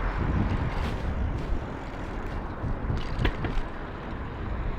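City street traffic: a steady noise of passing vehicles, with a couple of brief clicks.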